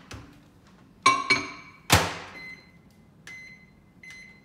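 A mug is set into a microwave with two quick ringing clinks against the glass turntable, then the microwave door shuts with a loud knock. The keypad then beeps three times as the cooking time is entered.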